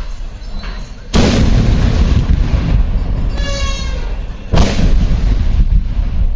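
Two ceremonial field cannons firing gunpowder charges, one about a second in and the next about three and a half seconds later, each a sudden boom followed by a long rumbling tail.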